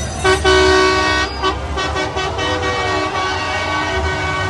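Classic car horn honking: a loud held blast about a quarter second in, loudest for about a second, then carrying on more weakly, over a low steady rumble.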